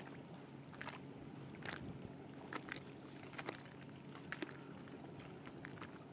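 Small waves lapping against the side of a boat, heard as irregular light splashes and ticks over a faint, steady low hum.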